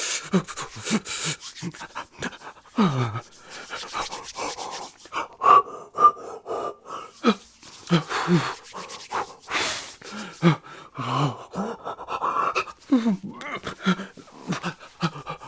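A person's worried vocal sounds: a string of short gasps, sighs and groans, many falling in pitch, with no clear words.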